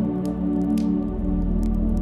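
Soft ambient music of sustained synth-pad chords, whose low notes shift about a second in, with scattered crackles from a log fire over it.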